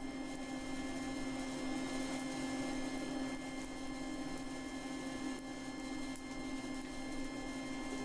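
Steady hum of a blacksmith's forge blower fan running at low speed, with a few faint clicks.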